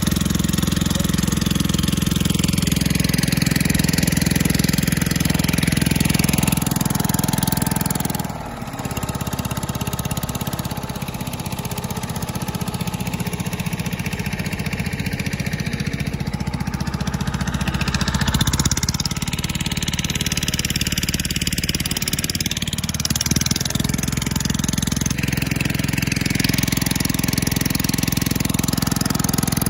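Small boat engine running steadily under way, with water rushing along the hull.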